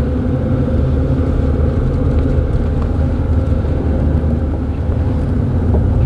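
Car driving slowly, with a steady low rumble of engine and road noise heard from inside the cabin.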